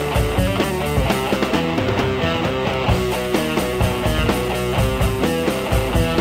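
Background music: instrumental rock with guitars and a steady beat.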